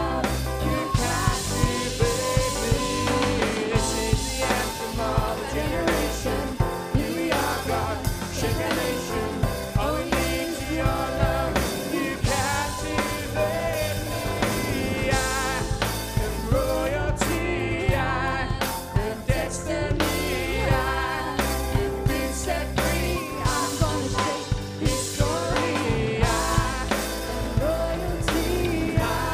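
Band music with singing over a steady drum-kit beat, in the style of a church worship song.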